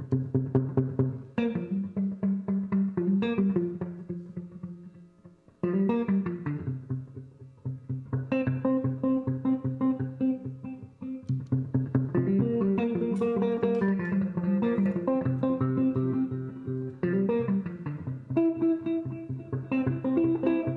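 Improvised solo music on plucked strings: fast repeated low notes with higher notes over them, fading out about four seconds in and starting again shortly after.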